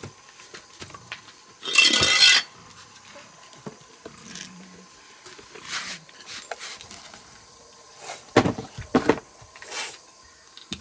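Handling noises from a car battery and its cardboard box being moved about on concrete: a loud scrape or rustle about two seconds in, then several short clicks and knocks near the end.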